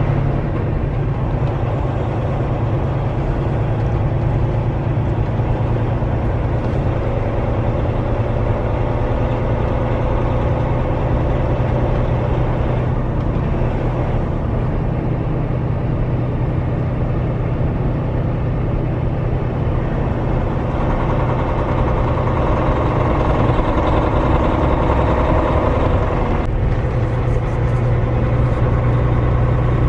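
Semi truck's diesel engine and road noise heard from inside the cab while driving, a steady low drone. The engine note shifts abruptly near the end.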